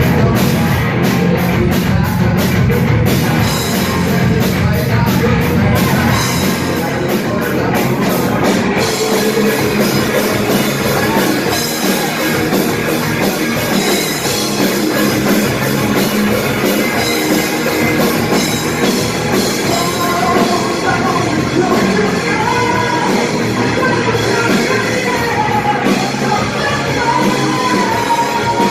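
Heavy rock song played by a band: guitars and drum kit, with singing. A curving melodic line comes in about two-thirds of the way through.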